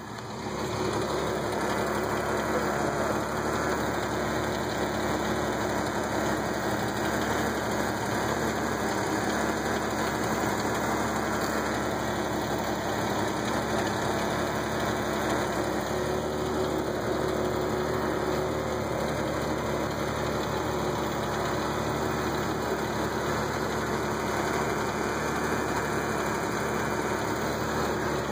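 1978 Ford Fairmont wagon's engine idling steadily. It grows louder over the first second, then holds an even, unchanging note.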